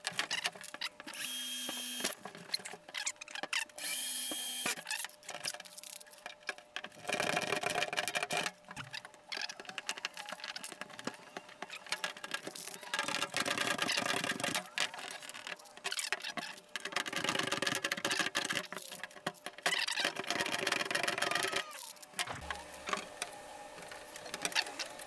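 Power drill running in several bursts of a few seconds each, drilling holes through the aluminium composite roof panel for the rivets that hold the cable-entry gland, with short clicks and knocks between the bursts.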